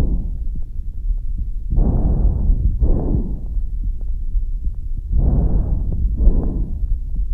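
Lung breath sounds heard through a stethoscope: two full breaths, each a pair of rushing sounds for breathing in and out, over a steady low rumble.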